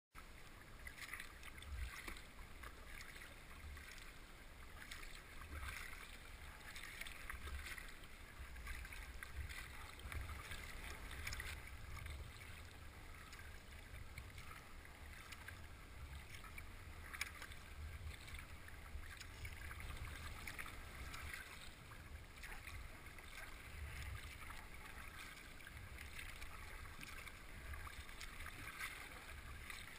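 Kayak paddle strokes on calm water: the blades dip and drip in an irregular rhythm every second or two. Low wind rumble sits on the camera microphone underneath.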